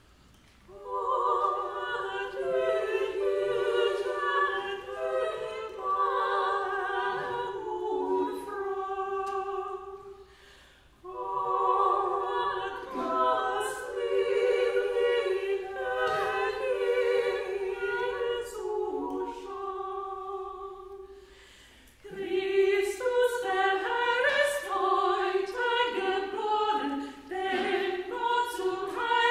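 Mixed church choir singing a Christmas carol in German, starting about a second in, in three phrases with a brief break between each.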